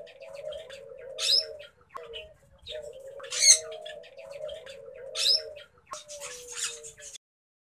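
Male Asian koel giving three low, wavering coos, the last one falling in pitch, with short sharp high chirps about every two seconds over them.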